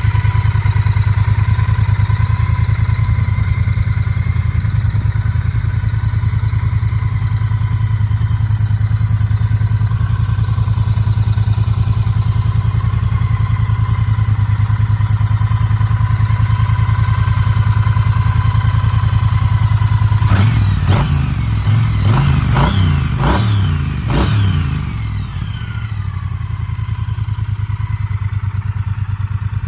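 Triumph Bonneville T120's 1200cc parallel-twin engine idling steadily, then, about two-thirds of the way through, blipped several times in quick succession, each rev rising and falling back, before settling to idle again.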